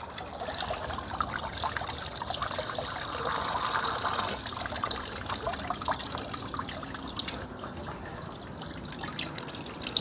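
Water trickling and splashing down a carved wooden fountain fed by a pump. The flow gets louder for a few seconds in the middle and eases off toward the end.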